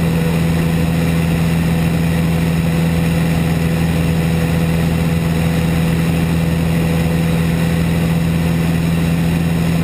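Van's RV single-engine light aircraft's piston engine and propeller, a loud steady drone at an unchanging pitch, heard from inside the cockpit.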